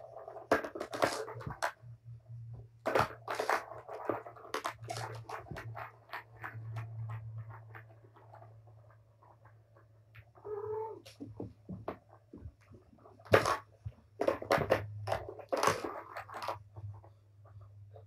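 Kittens playing with a plastic Tower of Tracks ball toy: irregular clatters and knocks as the balls are batted and rattle around the tracks, mixed with scuffling on the floor. A short mew comes about ten seconds in, over a steady low hum.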